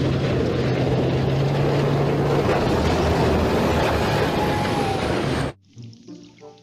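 Heavy vehicle engine running steadily with a low hum, cutting off suddenly near the end; a tank engine sound effect for the toy tank just named.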